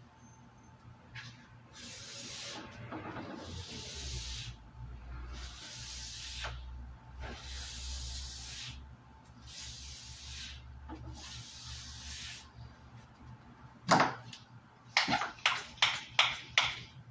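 Hand-pump pressure sprayer spraying in about six separate hissing bursts of roughly a second each. Near the end comes a sharp knock, then about six quick clicking strokes as the sprayer's plunger is pumped to build pressure.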